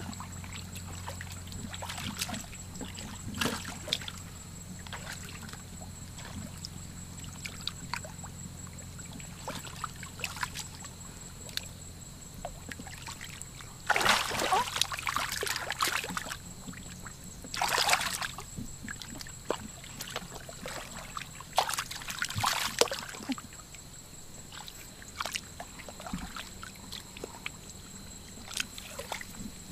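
Hands groping through shallow muddy water for fish, sloshing and splashing, with several louder splashes about halfway through and again a few seconds later.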